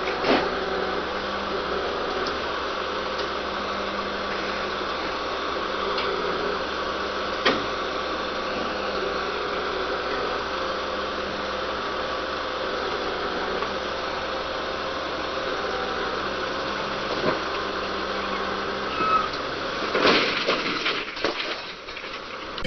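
An engine running steadily, with a few sharp knocks, one near the start, one about seven seconds in and several close together near the end.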